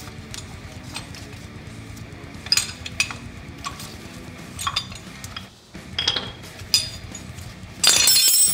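Metal clinks and knocks as a screw clamp is worked loose and lifted off a brake caliper, with a louder rattle of about half a second near the end. Guitar music plays underneath.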